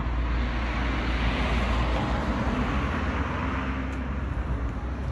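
Street traffic noise: a steady rumble and hiss of passing cars, a little louder in the first half.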